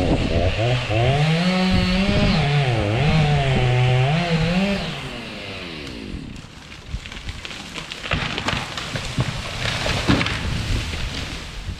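Chainsaw running under load, its engine pitch rising and falling as it cuts into wood, then dropping away about five or six seconds in. Irregular crackling and rustling follow.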